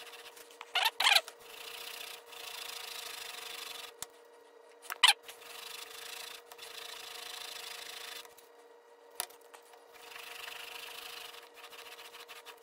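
Steel Iron Will single-bevel broadhead in its clamp being pushed back and forth with light pressure across a 1500-grit abrasive sheet, a dry rasping rub in strokes of a second or two with short pauses between. There is a sharp click about five seconds in.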